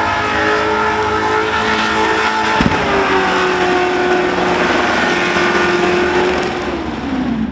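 Supercharged methanol-burning Holden Commodore's engine held at high revs during a burnout, with the hiss of spinning tyres, and a single sharp bang about two and a half seconds in. The revs drop near the end.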